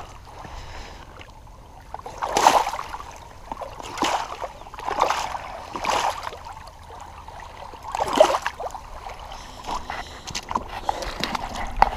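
Shallow lake water splashing as a flathead catfish is handled and released: about five sharp splashes between two and eight seconds in, then smaller ones near the end.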